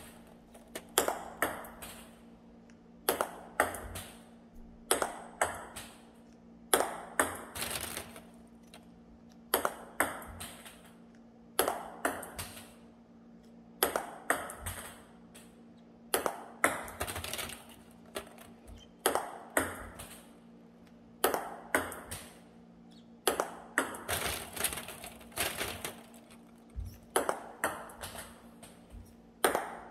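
Table tennis balls clicking off the table and a rubber-faced paddle during backhand push practice: a short group of quick, sharp knocks about every two seconds as each ball bounces, is pushed and lands across the net. A faint steady low hum sits underneath.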